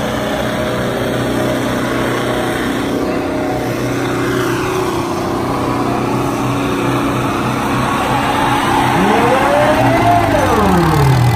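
Two tractor diesel engines, a Ford 3600 and a Sonalika 60, running hard under load as they pull against each other in a tug-of-war. Near the end a long sliding tone rises and then falls in pitch over the engines.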